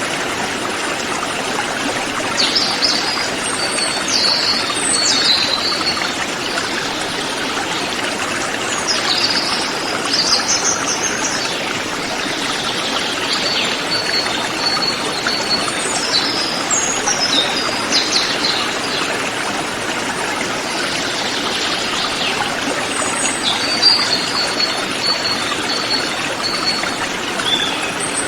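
River water rushing steadily, with forest birds calling over it every few seconds: quick high chirping phrases and rows of short, evenly repeated high notes.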